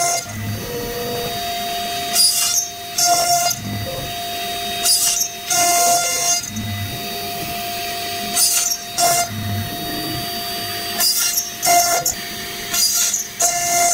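CNC router spindle running with a steady high tone while its bit routes MDF. Louder rasping bursts of cutting noise come in pairs about every three seconds as the bit works along the carved pattern.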